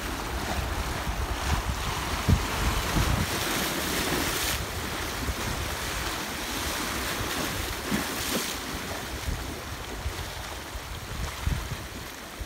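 Small waves washing and splashing over shoreline rocks, with hissing surges about four and eight seconds in. Wind buffets the microphone with low rumbles.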